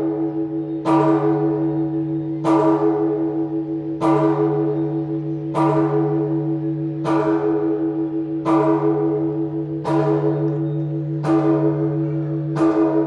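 Church bell of Phát Diệm Stone Cathedral tolling: nine strokes about a second and a half apart, each ringing on into the next with a pulsing hum beneath.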